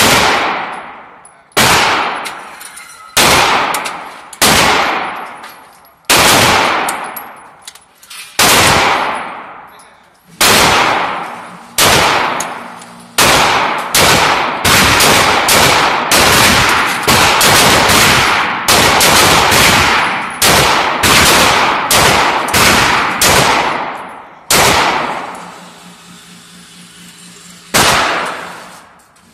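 Ruger SR9 9 mm semi-automatic pistol firing about thirty shots, each ringing off the walls of an indoor range. The shots come a second or more apart at first, speed up to about two a second through the middle, then slow to two last shots. A low steady hum sits under the quiet gap near the end.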